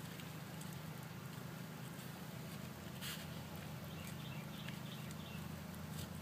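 Faint scraping and light tapping of a small stick stirring two-part JB Weld epoxy on a piece of cardboard, over a steady low hum.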